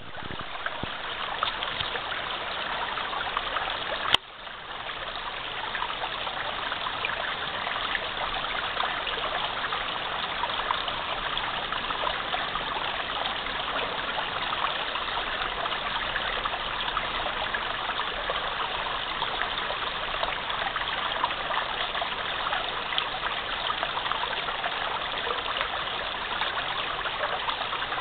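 Small stream running with a steady babble and trickle. About four seconds in there is one sharp click, after which the water sound drops briefly and builds back up.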